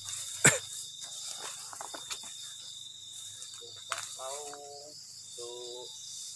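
Night insects, crickets, chirring in a steady high tone throughout. There is a sharp click about half a second in and a few softer ticks and rustles, and two short low voice-like sounds come about four and five and a half seconds in.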